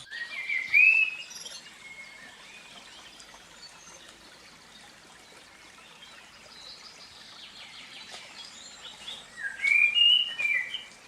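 Birds chirping: a quick cluster of calls at the start and another near the end, over a faint steady background hiss.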